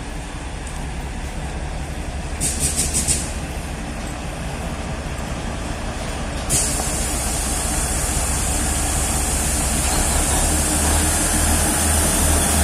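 Narrow-gauge NDM1 diesel locomotive drawing a train past close by, its engine rumble growing steadily louder. A brief rapid clatter comes about two and a half seconds in, and a steady high hiss sets in suddenly about six and a half seconds in.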